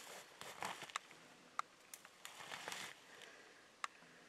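Faint rustling and shuffling of a person moving and kneeling in snow among dry brush, with a few sharp clicks scattered through.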